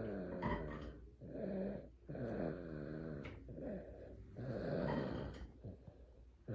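Baby snoring in sleep: a run of short, rattly snoring breaths, about one a second.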